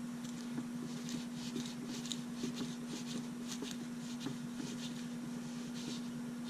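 Light clicks and soft rustling from handling small parts: a keychain flashlight and its batteries in a plastic holder being fitted by hand. A steady low electrical hum runs underneath.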